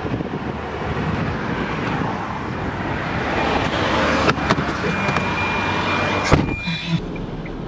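Car road and traffic noise: a steady rush of a vehicle on the move. A thin high tone holds for about three seconds in the second half, and a few sharp clicks fall in the middle and near the end.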